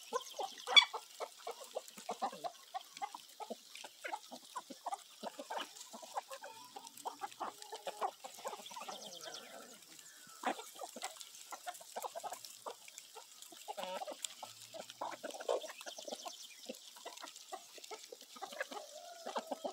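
Chickens clucking, with many short clucks and calls scattered throughout.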